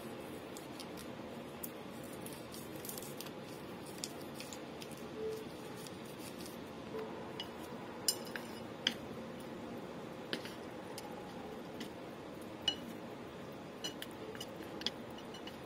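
Chopsticks clicking and scraping against a ceramic plate while noodles are tossed and mixed. A few sharp clicks come mostly in the second half, over a faint steady hiss.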